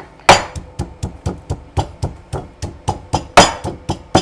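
Stone pestle pounding a garlic clove with salt in a stone mortar, mashing it to a paste: steady knocks about four a second, a few landing harder than the rest.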